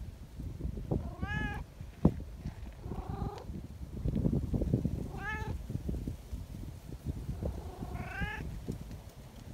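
Domestic cats meowing: four short meows spread through, each rising then falling in pitch, over soft rustling. A sharp tap about two seconds in.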